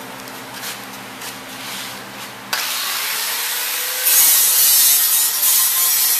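Electric angle grinder switched on about two and a half seconds in, then grinding into a fibreglass boat exhaust section from about four seconds in, much louder and harsher.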